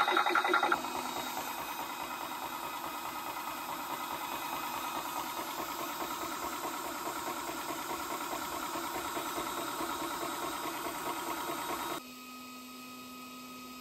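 VEVOR 4500 psi portable PCP high-pressure air compressor running while it fills a carbon-fibre air bottle. The piston pump pulses steadily under a hiss and fan hum. The level drops abruptly about a second in and again near the end.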